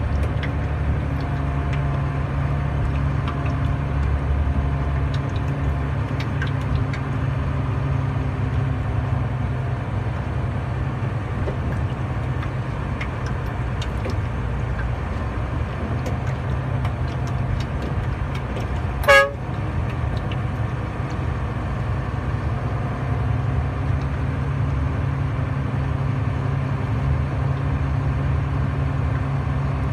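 Semi-trailer truck's diesel engine running steadily as it drives over a dirt road, heard from inside the cab. About two-thirds of the way in comes one short horn toot.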